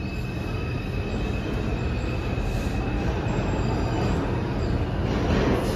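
An R142-series subway train braking slowly to a stop at the platform: a steady low rumble of the cars with a thin, high wheel squeal. There is a short burst of noise near the end.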